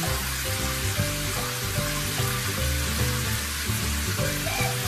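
A steady hiss of running water, with background music playing underneath.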